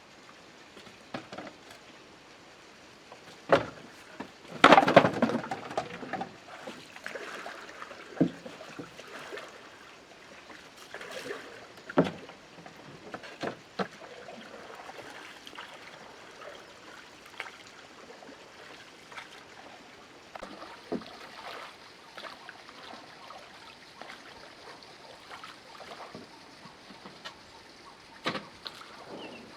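Water sloshing and splashing with scattered knocks and clunks, the loudest a sharp knock followed by a longer splash around four to six seconds in.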